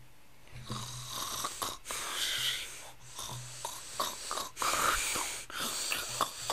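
Snoring: a run of snores, each about a second long with short gaps between them, over a low steady hum.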